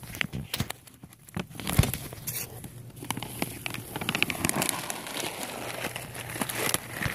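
Printed plastic bag of cat food crinkling and crackling as it is handled, getting denser and louder about three seconds in.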